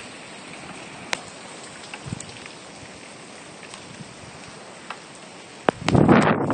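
Steady hiss of a rain shower with a few sharp ticks. Near the end, loud wind buffeting on the microphone as the phone swings around.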